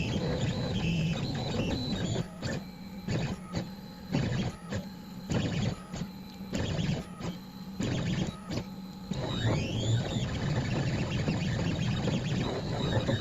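Onefinity CNC's stepper motors driving the machine through an etching toolpath in a string of short stop-start moves, with a steady hum underneath. About two thirds of the way in, a motor whine sweeps up in pitch and back down.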